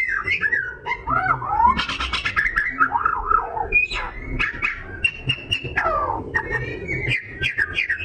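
Oriental magpie-robin in full song: a continuous, varied run of whistled notes sliding up and down, quick trills and bursts of harsh, rattling chatter, with no real pause.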